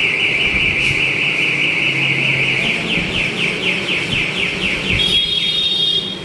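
Reco aftermarket motorcycle alarm's siren sounding on a Honda CB150F: a fast warbling tone, then quick rising whoops about five a second, then a steady higher beep near the end as it cycles through its tones.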